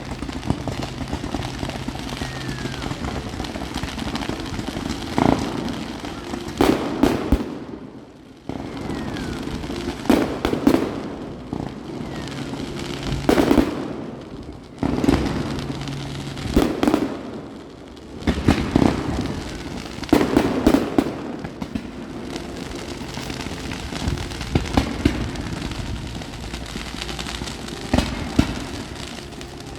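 Fireworks display: aerial shells bursting in a string of booms, about one every second or two, some in quick pairs.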